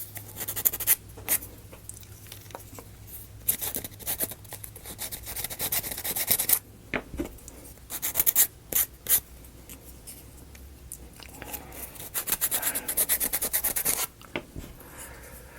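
Thin wooden model-kit pieces rubbing and scraping as they are handled and worked into slots, in spells of quick scratchy rubbing broken by short pauses, with a few sharp clicks.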